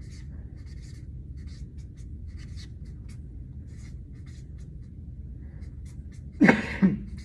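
Felt-tip marker writing on flip-chart paper: a run of short scratching strokes. Near the end comes a brief, louder pitched sound that falls in pitch twice.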